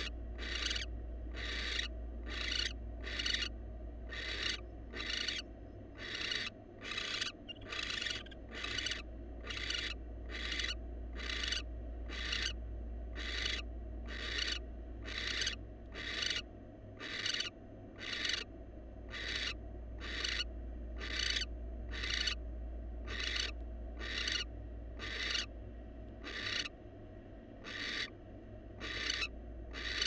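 Barn owl giving long rasping hiss calls, the 'snoring' call, repeated steadily about four times every three seconds.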